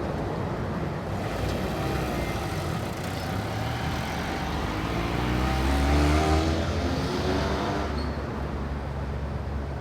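A car passing by: engine and road noise build up, with the engine note rising as it accelerates, are loudest about six seconds in, then fade away.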